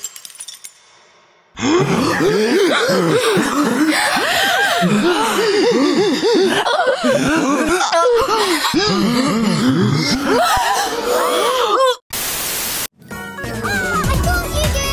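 Many cartoon voices stacked over one another, screaming and wailing in overlapping rising and falling cries. Near the end they break off for about a second of loud static hiss, then electronic music with a bass beat starts.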